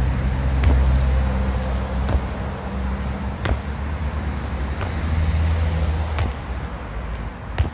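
Trainers landing on an asphalt court during repeated jump squats, a sharp slap about every one and a half seconds, over a steady low traffic rumble.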